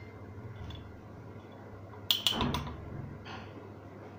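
A few light knocks of a metal spoon against a steel bowl and a clay mug about two seconds in, as the last of the besan is tapped out, over a low steady hum.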